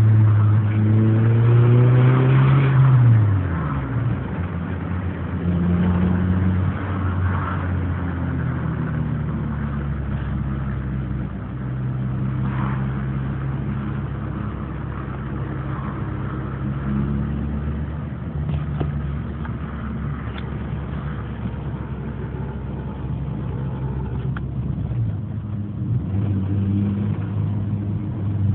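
Honda Civic's D15 four-cylinder engine running: revved up over the first seconds and dropping back about three seconds in, then idling with small rises in speed. It has a knock that the owner cannot place as coming from the head or the bottom end.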